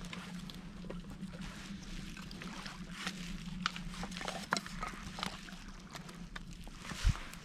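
Dry twigs crackling and snapping in irregular sharp clicks, with a louder snap about seven seconds in, as a small twig fire is built up from tinder lit with a ferro rod.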